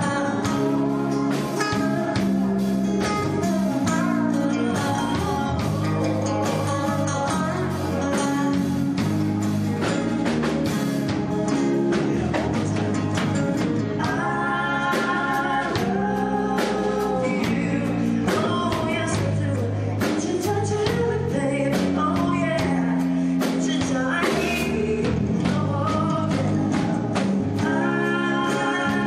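Live rock band playing: electric guitars, bass guitar and drum kit, with a man singing lead.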